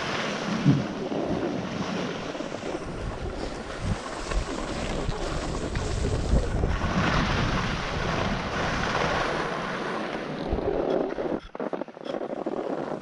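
Wind rushing over the microphone and the scraping hiss of edges sliding and carving on groomed snow during a fast downhill run. The rush drops away abruptly near the end.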